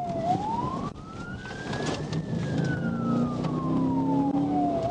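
Police car siren wailing in a slow rise and fall: it climbs for about two seconds, falls for the next two and a half, and starts to climb again at the end. Engine and road noise from the speeding pursuit car run underneath.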